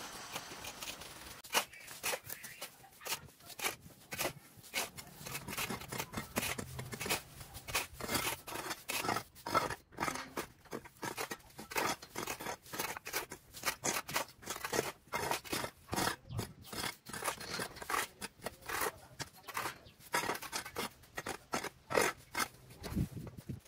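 Hand cutting tool making many short, sharp snipping and scraping strokes, several a second and irregular.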